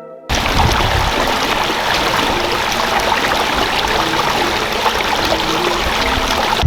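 Steady rushing of flowing water, cutting in abruptly just after the start.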